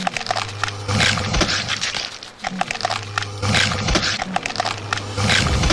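An animal-like growl from a creature, in about three rough stretches with short gaps.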